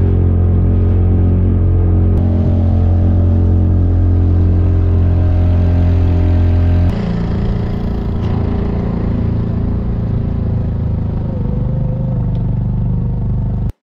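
Small outboard motor on a fishing kayak running steadily at speed over choppy sea, with water rushing past the hull. About halfway through, the engine's note changes and gets a little quieter, and the sound cuts off abruptly just before the end.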